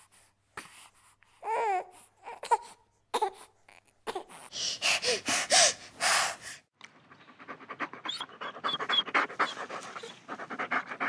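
A dog whimpering a few times, then panting hard and fast, several breaths a second, over the last few seconds.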